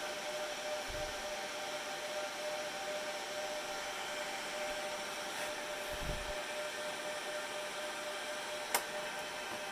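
Steady fan-like whir and hiss with a faint steady whine, and one sharp click near the end.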